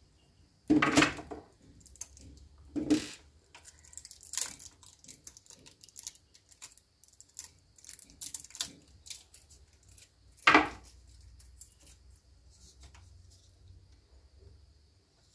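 Hands handling a small circuit board and a heatshrink tube: scattered light clicks and rustles, with louder knocks about a second in, about three seconds in and at about ten and a half seconds. A faint steady high whine runs underneath.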